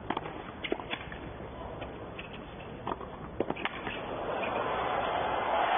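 Tennis ball struck by racquets in a baseline rally: several sharp hits a second or so apart. Then crowd cheering and applause swells over the last couple of seconds as the point is won.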